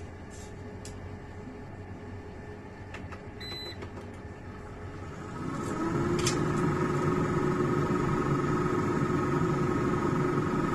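A few light clicks of kitchen utensils, then about halfway through a steady motor hum with a low drone comes on and holds.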